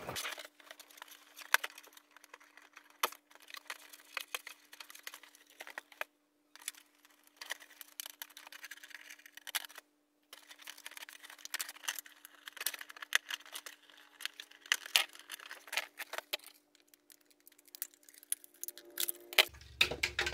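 Toy packaging being handled and opened: irregular crinkling of clear plastic and cardboard with many sharp clicks, over a faint steady hum.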